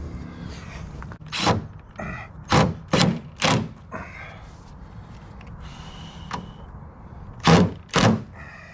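A series of hard knocks and thuds with a faint ringing after some of them: four in quick succession in the first half, then two close together near the end.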